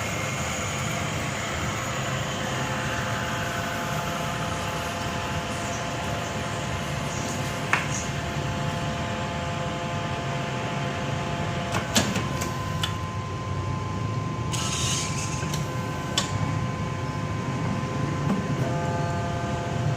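Automatic cutting machine running with a steady motor hum and whine, a few sharp clicks at intervals, and a short hiss about fifteen seconds in.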